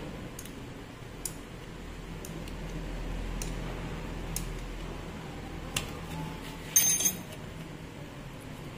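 Small metal parts of a Maktec MT958 angle grinder clicking and clinking as the gear housing and armature are handled and pulled apart, with a louder clatter of metal about seven seconds in.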